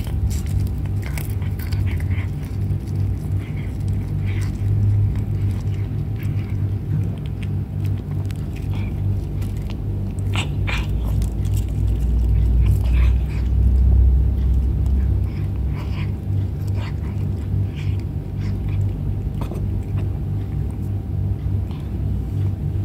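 A cat chewing pieces of food, with short, irregular clicks of chewing, over a steady low rumble that runs throughout.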